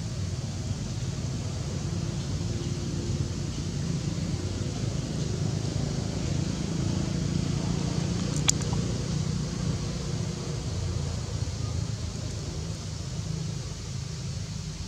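Steady low outdoor rumble, with a single sharp click about eight and a half seconds in.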